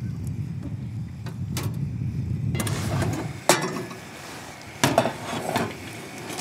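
Low wind rumble, then metal cookware clinking at a camp stove over a hiss: two sharp clanks about a second and a half apart as chopped vegetables go into a steaming stainless pot.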